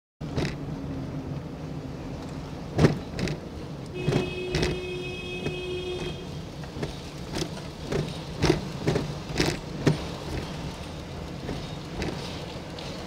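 Road noise of a car being driven: a steady low engine and tyre hum with frequent knocks and rattles from bumps in the road. A held tone sounds for about two seconds around four seconds in, and the sound cuts off abruptly near the end.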